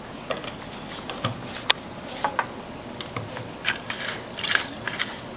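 Scattered light taps and clicks of glass beakers and bottles handled on a lab bench, with liquid poured into a glass beaker briefly about four seconds in.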